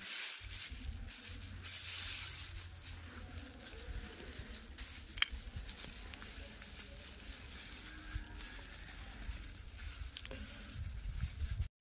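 Thin black plastic sheet crinkling and rustling as it is folded and creased by hand, over a low rumble of wind on the microphone. A single sharp click about five seconds in.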